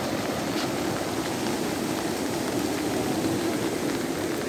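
Floodwater rushing steadily over a road causeway, a continuous churning rush with no breaks.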